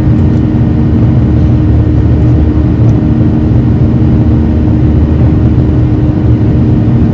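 Jet airliner engines heard from inside the cabin during the climb after takeoff: a loud, steady roar with a constant droning hum.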